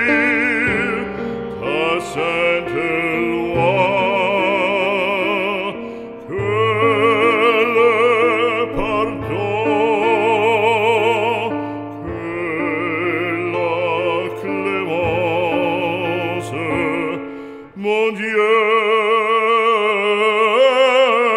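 Operatic singing over an orchestral accompaniment: a classically trained voice holds long notes with wide vibrato.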